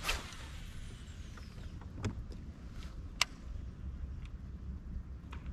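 A cast with a baitcasting reel: line whizzing off as the spool spins, its whine falling in pitch over a second or so. A few sharp clicks of the reel and rod follow, the loudest about three seconds in, over a steady low rumble.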